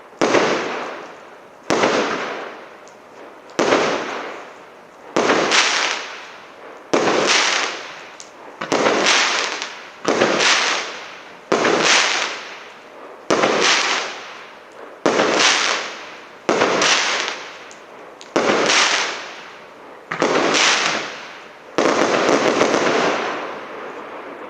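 СЛ326200 Марафон firework battery firing shot after shot, about one every one and a half seconds. Each shot is a sudden burst that dies away over about a second. The last one, near the end, trails off longest.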